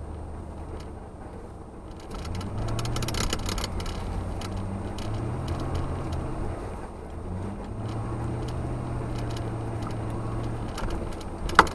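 1990 Ford F-150's 302 V8 heard from inside the cab, its revs climbing about two seconds in, easing briefly partway through and climbing again, then dropping near the end, as the rear-wheel-drive truck spins its wheels and slides on snow over ice. A short sharp sound comes just before the end.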